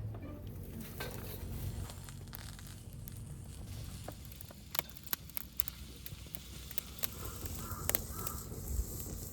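A crow cawing outdoors, with a couple of short calls near the end, over a low outdoor rumble and a few scattered sharp clicks.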